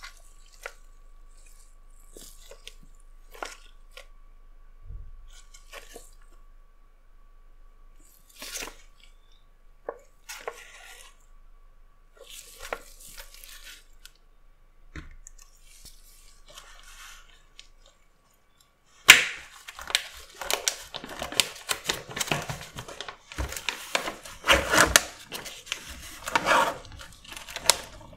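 Scattered light taps and crinkles of gloved hands handling a sealed plastic food tray. From about two-thirds of the way in, a dense run of crackling and tearing as the tray's plastic film lid is peeled off.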